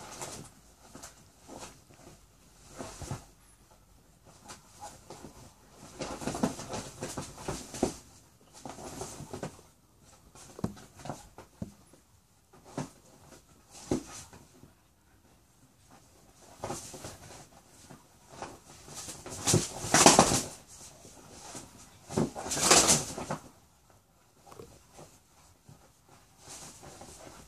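A dog and a rooster tussling on a leather couch: irregular bursts of scuffling and animal noise with short pauses, two louder bursts about three-quarters of the way through.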